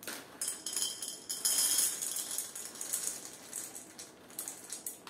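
Dry popcorn kernels poured from a plastic bag into the popcorn maker's plastic measuring cup: a rattling patter of many small clicks, loudest about one and a half to two seconds in.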